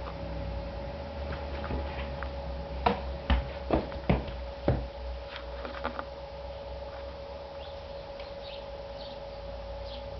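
A steady hum, with a quick run of five or six sharp taps or knocks a few seconds in, and faint short high-pitched chirps toward the end.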